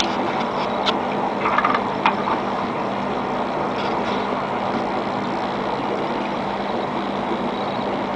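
Steady mechanical hum and hiss, with a few light clicks about one to two seconds in.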